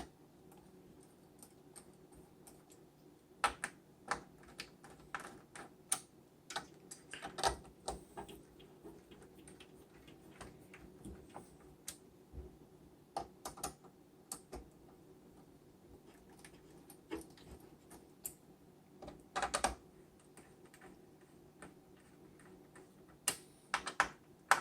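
Irregular light clicks and ticks of a screwdriver turning the screws of a CPU cooler as they are tightened one at a time, with quiet stretches between.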